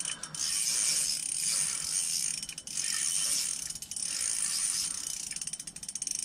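A Shimano Stratic 2500 spinning reel being cranked, its gears running in spells with short pauses, as a hooked burbot is reeled up through the ice hole.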